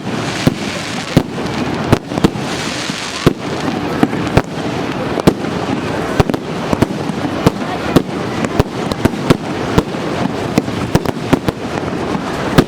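Fireworks display: a rapid, irregular series of sharp bangs, a few each second, over a steady background of noise.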